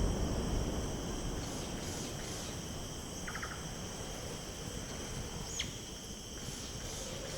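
Steady insect chorus of crickets or similar insects, several shrill high tones trilling without a break, with a brief chirp about five and a half seconds in.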